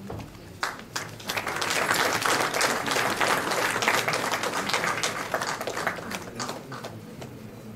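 Audience applauding. The clapping builds up about a second in and tapers off near the end.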